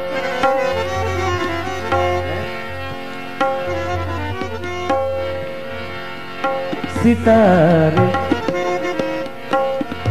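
Harmonium holding sustained notes while a tabla plays a rhythmic ghazal accompaniment: sharp strokes on the small drum and ringing low notes from the bass drum.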